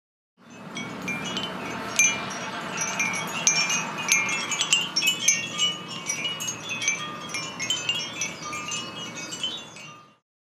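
Pieces of binchotan charcoal struck against one another or with a beater, many quick overlapping clinks that ring on with clear, high, metallic chime tones. The sound starts about half a second in and stops just before the end.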